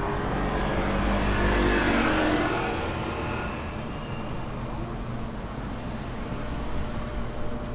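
Street traffic: a motor vehicle passes close by, loudest about two seconds in, then a steady low traffic rumble continues.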